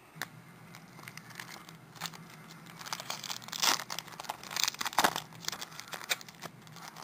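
Foil wrapper of a baseball card pack crinkling as it is handled and torn open, an irregular crackle that is loudest about halfway through.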